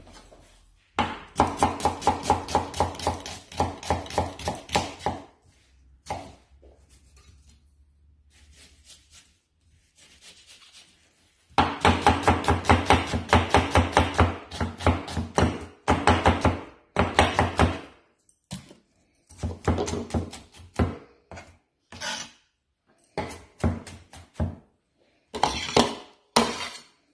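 Onion being diced with a large kitchen knife on a wooden chopping board: rapid knife strokes knocking on the board several times a second. There are two long runs of chopping with a pause between, then slower, scattered chops near the end.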